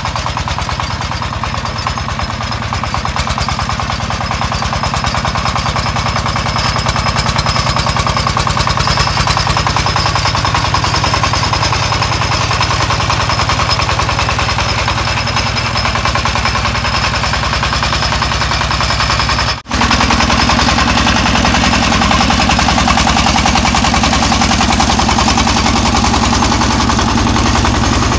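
Single-cylinder diesel engine of a công nông farm cart running with a rapid, steady chugging as it drives through brush hauling a load of logs. The sound breaks off for an instant about two-thirds of the way through, then resumes slightly louder.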